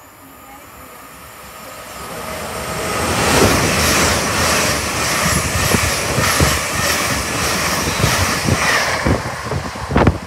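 Great Western Railway Intercity Express Train running through a station at speed: a rush of wheel and rail noise that builds over about three seconds, then stays loud with a rapid run of wheel clacks as the coaches pass, easing near the end. A sharp click comes just before the end.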